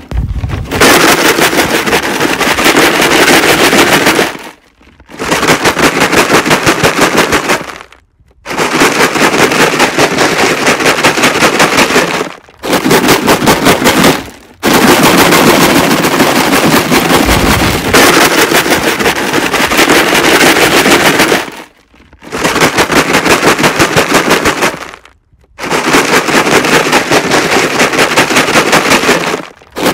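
A plastic jug filled with rocks being shaken hard, the rocks rattling loudly and rapidly against the plastic in bouts of a few seconds with brief pauses between them.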